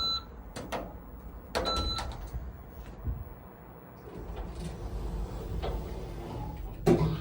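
Two short electronic beeps, each with a click, from the ThyssenKrupp lift's controls; then the lift's sliding doors run with a low steady hum and shut with a loud thud near the end.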